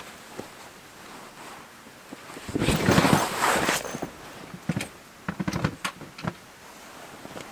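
Canvas tent fabric rustling loudly for about a second, then a few short scuffs and knocks as boots step out of the tent onto ground covered in dry leaves.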